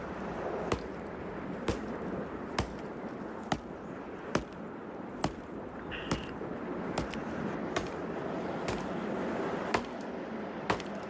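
Wood being chopped with an axe or hatchet, about one sharp knock a second, over a steady hiss.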